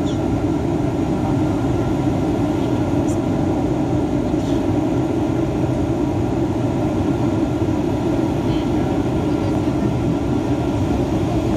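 Steady cabin drone of a Boeing 737-800 airliner in flight, the sound of its CFM56 jet engines and the air rushing past the fuselage, with faint steady hums running through it.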